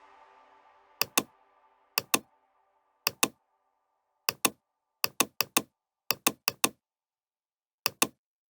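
Sharp computer clicks in quick pairs, about a dozen pairs with a few runs of four, under the fading tail of a music note over the first two seconds.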